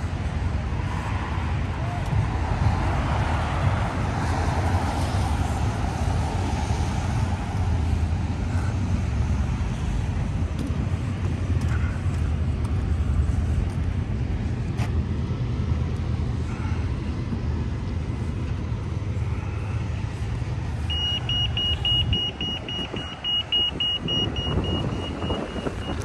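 City street traffic: a steady low rumble of running vehicles, with a swell of passing-car noise a few seconds in. Near the end the rumble drops away and a steady high-pitched tone sounds for about five seconds.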